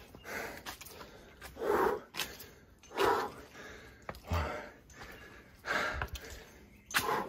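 A person breathing hard while climbing stairs: about six loud, heavy breaths, spaced a second or so apart, with a few low thumps of footsteps on the concrete steps.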